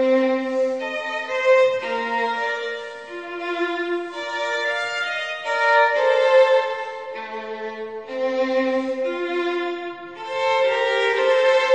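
Instrumental music: a violin playing a melody of held notes that change every second or so.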